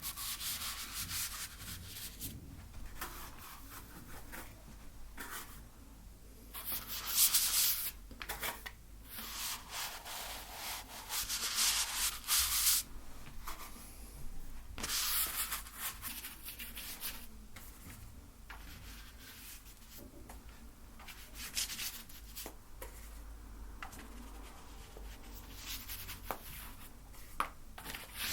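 Painting tool rubbing and scraping paint across a canvas in irregular strokes, with several longer, louder passes in the middle.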